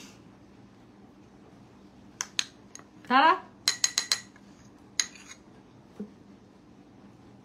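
Metal spoon clinking and scraping against a bowl while scooping a thick face-pack paste: a few sharp clicks, a short rising squeak about three seconds in, then a quick run of four ringing clinks and one more near five seconds.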